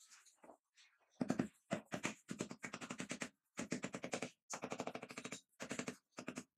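A freshly laid marble floor tile being tapped down by hand into its mortar bed, giving rapid rattling taps in a run of short bursts with brief pauses between them, starting about a second in.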